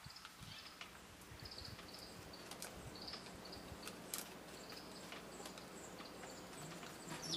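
Eurasian tree sparrow pecking at rice in a plastic tray, giving light sharp ticks now and then. Faint short high chirps recur throughout.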